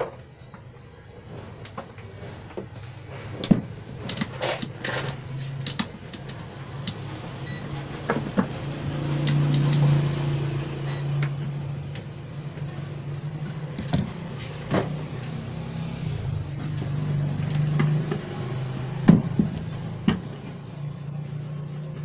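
Scattered light clicks and knocks of wires and connectors being handled on an opened CRT television, over a steady low drone that swells about halfway through and again later.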